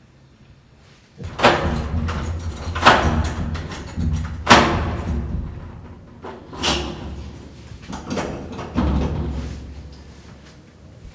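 A door's lock and latch being worked: a series of about five loud clacks and knocks, each ringing out briefly, over a low steady hum.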